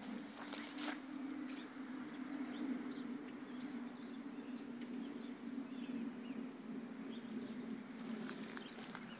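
Faint outdoor ambience: a steady low hum with scattered faint, short bird chirps and a few light clicks.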